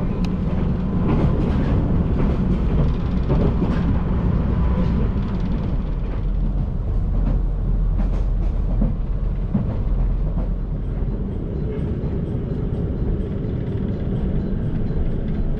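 Train running along the rails: a steady low rumble with scattered clicks and knocks.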